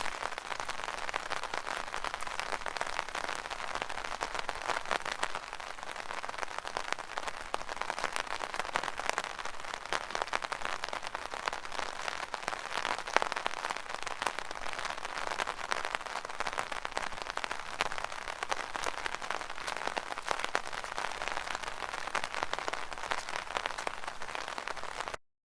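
Steady rain falling on an umbrella canopy: a dense, even patter of many small drop impacts. The sound cuts out briefly at the very end.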